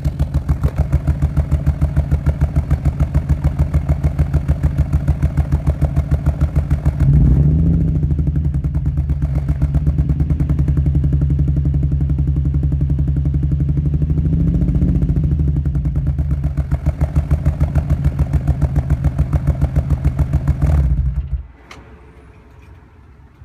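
Infiniti G35's 3.5-litre V6 running at the exhaust with an evenly pulsing, uneven note, revved up briefly twice. It is misfiring (code P0300), with the driver's-side exhaust sounding fuzzy and not normal. The engine sound drops away suddenly near the end.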